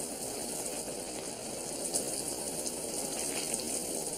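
Steady engine and road noise heard inside a moving vehicle's cab, an even rumble and hiss without any change in pace.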